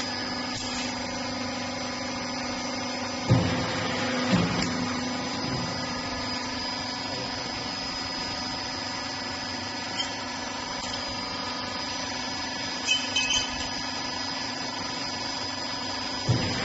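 Small transformer disassembly recycling machine running with a steady hum, broken by a few short knocks and clanks, the loudest about three seconds in.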